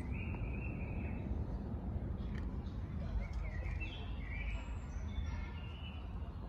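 Small birds chirping in short pitched calls, once near the start and again in a run of several calls later on, over a steady low rumble of outdoor background noise.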